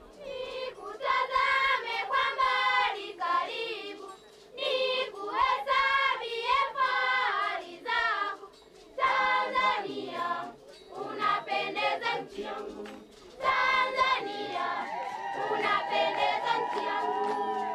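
Tanzanian children's choir singing, phrase after phrase with short breaks between them, the last phrase held longer.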